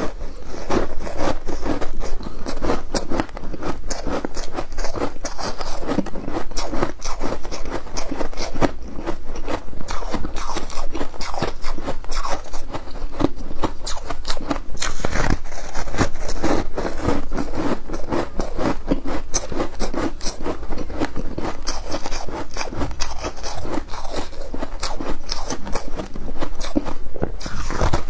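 Foam ice topped with flaked ice being chewed, a dense, unbroken run of crisp crunches.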